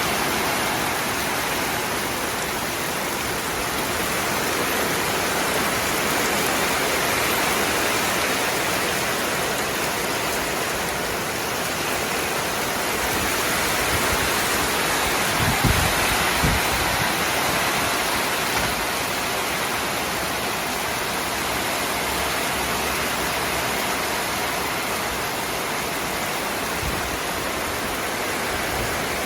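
Rain falling steadily in a rainstorm, a constant hiss, with two brief low thumps about halfway through.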